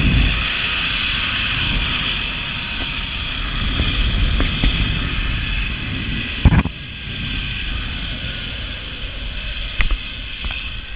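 Zipline trolley pulleys running along the steel cable with a steady whir, over wind rumble on the microphone. A sharp thump comes about six and a half seconds in, and a few clicks near the end.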